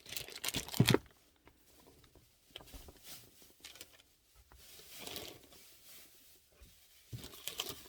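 Unboxing handling noise: rustling with scattered clicks and knocks. The loudest clicks come in the first second, and another group near the end.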